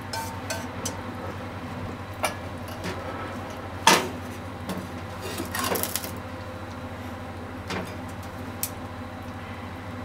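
Kitchen clatter while a stir-fry is plated: a sharp metal clank with a brief ring about four seconds in as the frying pan is set down on the gas stove's grate, then a short scrape. Light taps of chopsticks against a ceramic bowl follow, all over a steady low hum.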